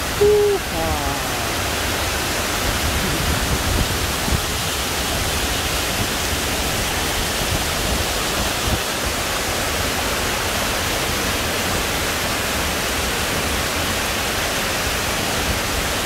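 A waterfall cascading over rocks: a steady, even rushing with a low rumble underneath.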